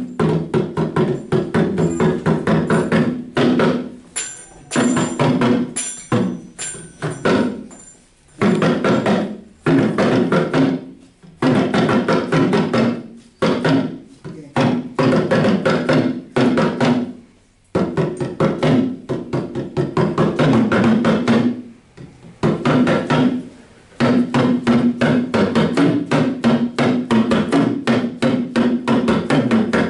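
Small handheld drum struck rapidly with a stick, playing fast rhythmic phrases separated by brief pauses every few seconds.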